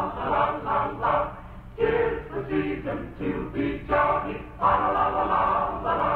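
Background music: a choir singing a Christmas song in phrases about a second long.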